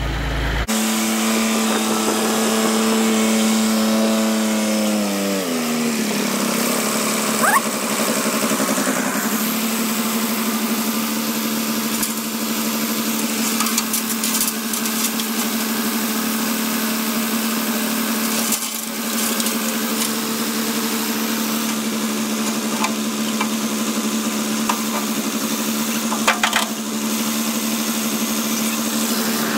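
John Deere 1120 tractor engine running, slowing from a faster speed to idle about five seconds in, then idling steadily, with a few sharp clanks along the way.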